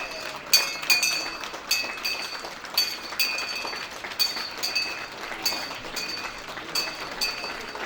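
A bell rung over and over, about two strikes a second and slightly uneven in rhythm, each strike leaving a high ringing tone that hangs on briefly before the next.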